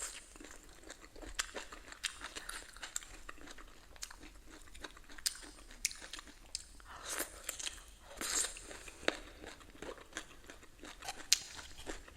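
Close-miked chewing and crunching of food, with many sharp mouth clicks and bites. Louder crunchy stretches come about seven to nine seconds in, and a single sharp crack a little before the end.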